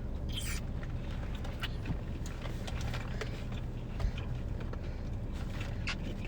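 Steady low hum of a car engine idling, heard inside the cabin, with a few faint clicks and crunches of eating.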